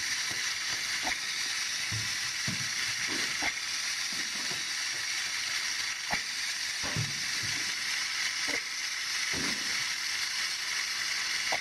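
A VEX flywheel launcher with two turbo-geared motors and 1:7 external gearing, one motor per flywheel, spinning at speed: a steady whirring hiss with a faint high whine. Short knocks come irregularly, about every second or two.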